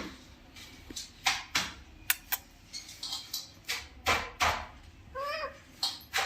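Irregular sharp clicks and taps, about a dozen, around a pet parrot, with one short wavering chirp from the parrot about five seconds in.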